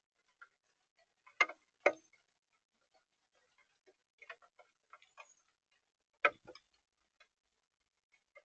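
Irregular sharp taps and clicks on a bird-feeder camera, close to the microphone. Three louder knocks stand out, two close together near the start and one past the middle.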